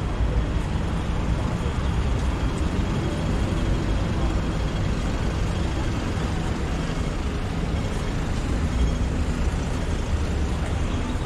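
Steady road-traffic noise on a busy city street: the low rumble of buses and cars running alongside the pavement, with no single loud event.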